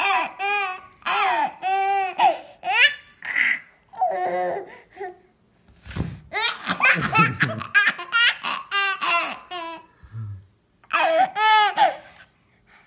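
A baby laughing in strings of short, high-pitched bursts, with brief pauses about five and ten seconds in.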